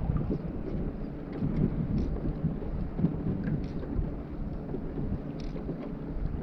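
Wind buffeting the microphone as a steady low rumble, with faint small ticks and drips of water on the kayak.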